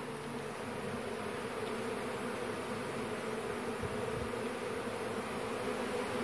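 A swarm of honeybees buzzing in a steady drone as they fly in and settle on the frames of a five-frame nuc hive, returning to where their queen is held.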